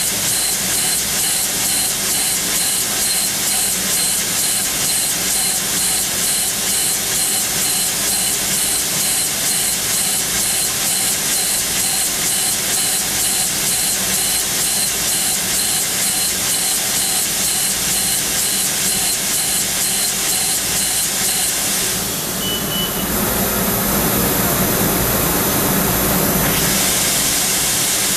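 Sodick ND80L machining centre peck-drilling hardened SKD61 tool steel with a 1 mm OSG carbide drill at 13,000 rpm: a steady spindle hum and a hiss, with a small regular pulse from the pecking cycle. About 22 seconds in the sound changes to a rougher hiss for around four seconds, with a short high tone at its start.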